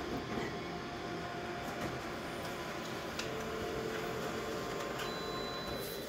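Office multifunction copier running steadily while printing a copy, with a few faint clicks of the paper path as the sheet is fed through to the output tray.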